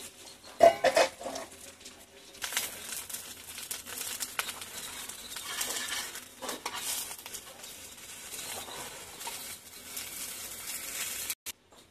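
Bánh xèo (a Vietnamese rice-flour pancake) sizzling in hot oil in a wok over a charcoal fire, with a clatter of the metal pan lid being lifted off about a second in and a spatula scraping under the pancake. The sizzling comes in loud about two and a half seconds in and cuts off suddenly near the end.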